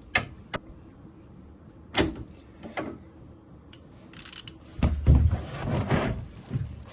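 Sharp metallic clicks and knocks of a spanner being fitted to and worked on the engine oil drain plug of a 125cc drag bike, followed about five seconds in by a louder stretch of handling and rubbing noise.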